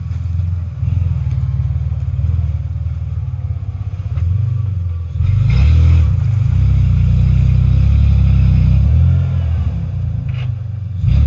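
Lifted Toyota 4x4's engine revving hard under load as it climbs a steep, rutted sand hill, getting louder about halfway through, easing off briefly, then rising again near the end.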